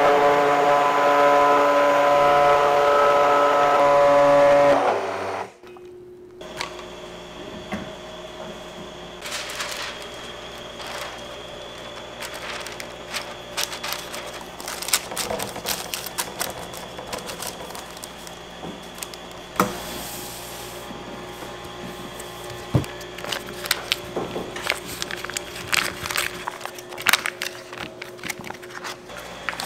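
A machine runs loudly and steadily for about five seconds, then cuts off suddenly. After that, scattered clicks and taps of handled tools and containers sound over a steady hum in a bakery kitchen.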